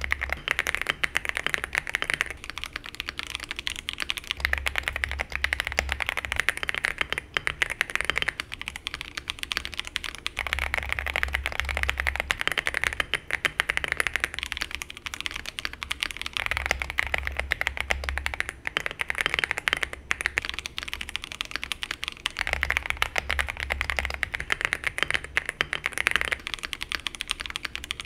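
Steady fast typing on stock mechanical keyboards, one after another: first the Epomaker Shadow S TKL with Mulan switches, Cherry-profile keycaps and a polycarbonate plate; then the RX-Storm RX870 with TTC Yunhai switches; and near the end the aluminium-cased CIDOO V87 with CIDOO Matte switches. The V87 sounds thin and insubstantial beside the other two, which sound alike and have both a foam and a plastic sound-dampening sheet.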